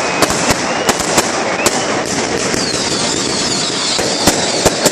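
Fireworks display: a rapid, irregular run of sharp bangs and crackles over a continuous hiss, with a few gliding whistles partway through.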